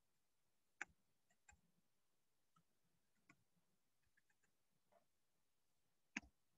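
Near silence, broken by a few faint, brief clicks or knocks, the last one near the end the loudest.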